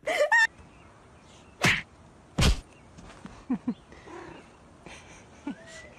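Two sharp thumps about a second apart, then a few faint knocks and a short faint rising squeak near the end.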